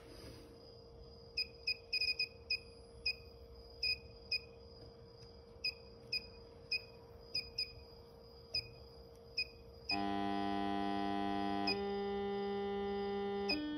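Short electronic beeps from a DDS function generator as its frequency is dialled, irregular and about twenty in all, over a faint steady whine. About ten seconds in, the load switched by the generator's square-wave output starts sounding a loud buzzy tone near 200 Hz, its pitch following the set frequency and shifting twice near the end.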